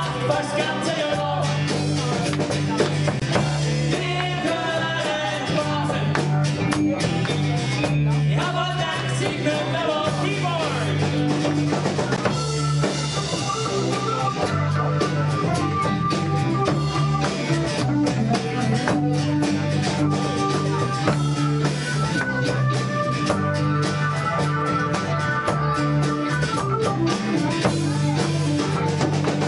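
Rock band playing live: a steady drum-kit beat, guitars and bass, with singing.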